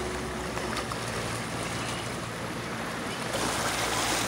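Small waves lapping and washing over rocks at the water's edge, a steady wash of water.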